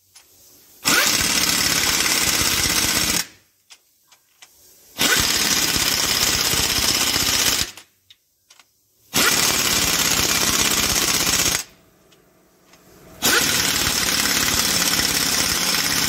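Pneumatic impact wrench hammering the cylinder-head bolts of a WD615 diesel tight, in four bursts of about two to three seconds each. Between the bursts come short pauses with light clicks as the wrench is moved to the next bolt.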